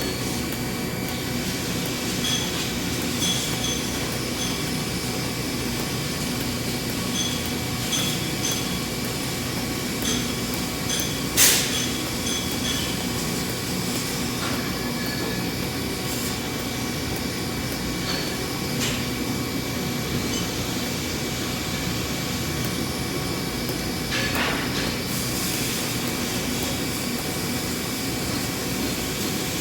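Steady hum and hiss of metalworking equipment, with scattered light metallic clinks and one sharp knock a little over a third of the way in.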